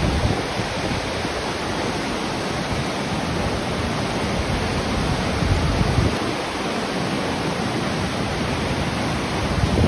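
A small river swollen into a flood torrent, its fast brown water rushing and churning in a loud, steady roar of white water.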